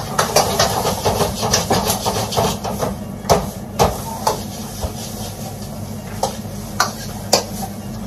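A metal spatula clanks and scrapes against a large pan of frying food on a restaurant stove. The strokes come quickly at first, then as single clanks about every half second. Underneath is the steady hum of the kitchen's extractor hood.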